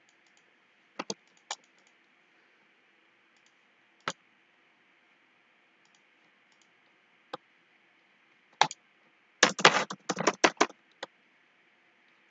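Computer keyboard and mouse clicks: a few scattered single clicks, then a quick run of keystrokes about nine and a half seconds in.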